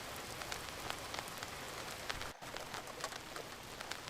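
Rain-and-vinyl ambience: a steady hiss of rain with many scattered light ticks and crackles. The sound briefly drops out about two and a half seconds in.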